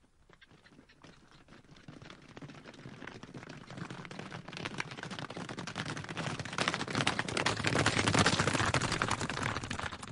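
Sound effect of a pack of hunting hounds coming closer, fading in from silence and growing steadily louder, with a dense rattle of rapid clicks throughout.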